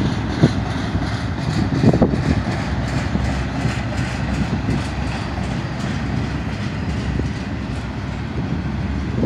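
Double-stack intermodal well cars of a freight train rolling past: a steady rumble of steel wheels on rail, with a couple of brief louder clatters in the first two seconds.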